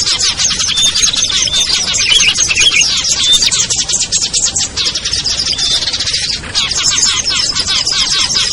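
A dense chorus of small songbirds chattering and calling rapidly over one another, with short whistled notes recurring through it: a mixed-species bird lure recording of the noisy kind used to draw small wild birds down.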